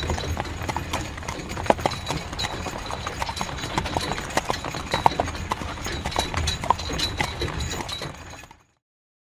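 Horse-drawn carriage on the move: horse hooves clip-clopping in an uneven trot over the low rumble of the rolling wheels. It fades out about eight seconds in, then cuts to silence.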